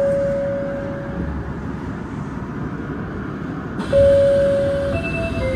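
Osaka Metro 30000 series train sounding its electric horn: two steady single-pitch blasts, the first about a second and a half long at the start, the second about a second long near the end, over the rumble of the train running through the tunnel.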